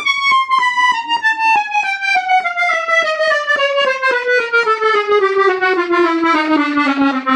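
Hohner Organola reed organ playing a descending scale, one note at a time, about three to four notes a second, falling a little over two octaves from high to low.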